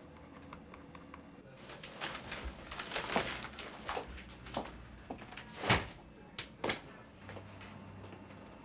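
Rustling and clatter of a plastic-wrapped bundle of paper files being handled, a run of short crackles and taps, then a sharp knock about two-thirds of the way through and two lighter knocks just after.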